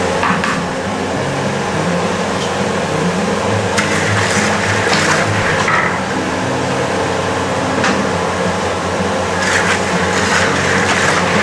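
Gas burner running steadily under a large steel wok, with a long ladle scraping the wok now and then while sugar and gula melaka are stirred as they melt.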